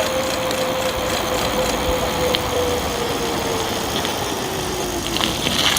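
Electric bike hub motor whining at a steady pitch over wind and tyre noise, the whine falling slowly in pitch over the last couple of seconds as the motor winds down. A few light clicks sound near the end.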